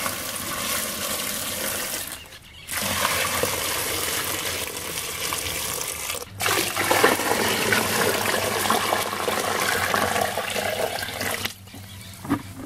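A stream of water pouring and splashing into a plastic crate of chopped prickly pear cactus pieces, filling it to soak them. The pour breaks off briefly twice and stops near the end.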